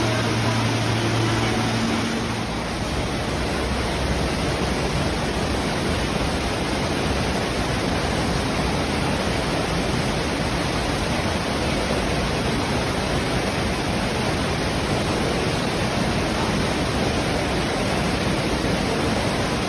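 Steady hiss of heavy rain and rushing floodwater, with a low hum that stops about two seconds in.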